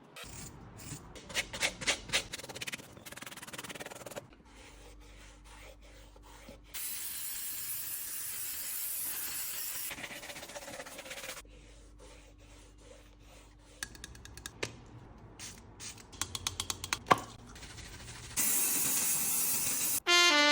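Sneaker restoration work: a quick run of brush-scrubbing strokes on the shoe, then long steady hisses of spraying, a run of small clicks and taps, and another hiss near the end.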